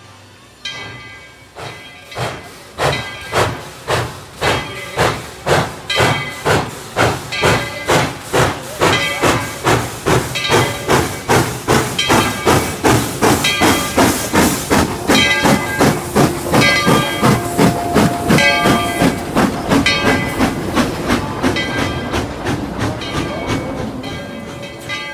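Tweetsie Railroad No. 12, a narrow-gauge Baldwin 4-6-0 steam locomotive, pulling out with its train: sharp exhaust chuffs about two a second, slowly quickening, with hissing steam and the engine's bell ringing. The chuffing builds over the first few seconds and fades near the end as the engine moves off.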